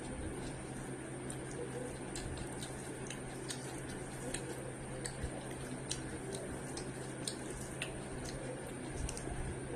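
Close-miked eating sounds: irregular wet mouth clicks and smacks from chewing, a few a second, over a steady background hiss and low hum.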